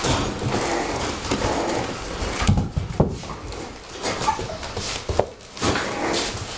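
Two six-week-old bulldog puppies play-fighting, scuffling and bumping about on padded floor pads, with a few short puppy vocal sounds and a couple of sharp knocks about halfway through.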